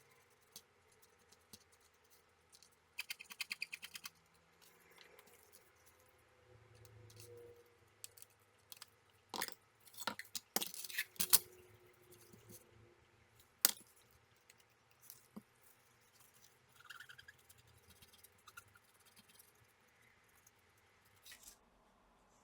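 Small hand tools working on a laptop circuit board during cleanup after soldering: a quick run of light ticks about three seconds in, then several scratchy scrapes and a sharp click near the middle, with scattered soft taps.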